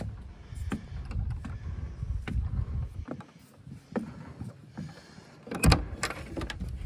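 Knocks and thumps of people moving about in a wooden deer stand, over a low uneven rumble, with a sharp cluster of knocks near the end as the loudest sound.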